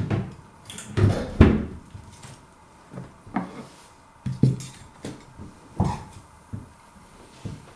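Irregular light knocks and clatter of cutlery and a plate being handled, about eight in all.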